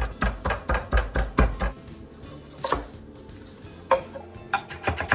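A stone pestle pounding garlic and seasonings in a stone mortar: a quick run of dull thuds, about four or five a second, that stops after under two seconds. After a pause with two lone knocks, a chef's knife starts chopping cilantro on a wooden cutting board near the end, a faster run of sharp knocks.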